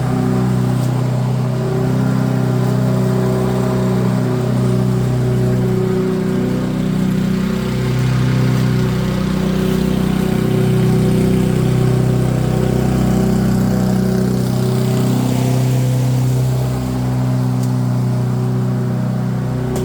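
Small petrol engine of garden power equipment running steadily at working speed, its pitch and level wavering slightly as the load changes.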